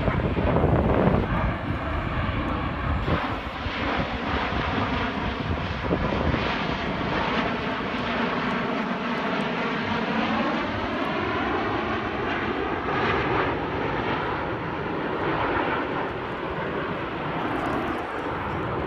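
A formation of Snowbirds Canadair CT-114 Tutor single-engine jets passing overhead: a steady jet roar, loudest in the first couple of seconds, its tone sweeping slowly down and back up as the formation moves across the sky.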